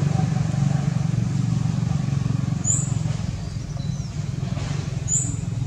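Steady low engine rumble, like a motor vehicle running nearby, with two brief high chirps partway through.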